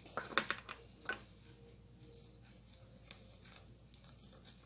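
A few sharp clicks and knocks of kitchen utensils handled on a wooden cutting board in the first second or so, then faint soft handling as a knife cuts along a raw prawn.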